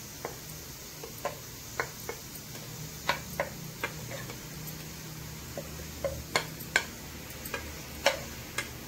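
About fifteen short, sharp clicks and taps at irregular intervals as a spoon and small bowls of spices knock against a pressure cooker while the masalas are tipped in over the mutton, with a low steady hum underneath.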